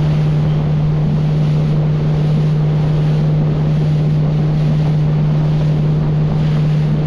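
Small boat's outboard motor running steadily underway, one constant low tone, with wind buffeting the microphone and the rush of water past the hull.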